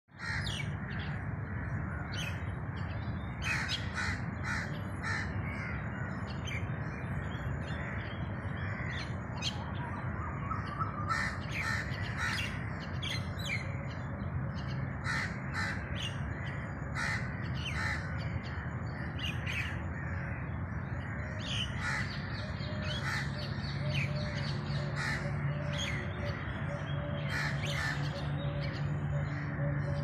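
Birds calling again and again in short, sharp calls, over a steady low hum.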